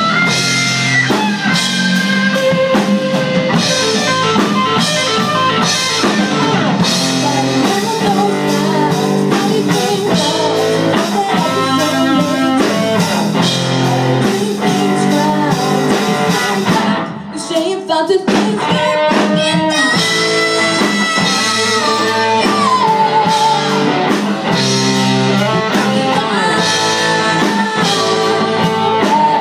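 Hard rock band playing live: electric guitar over bass guitar and drum kit. The band drops out briefly for a moment a little past halfway.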